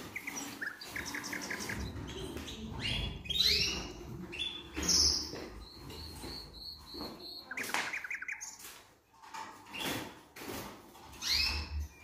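Caged canaries chirping and calling, with short rapid trills and rising call notes, plus a few knocks from the cages.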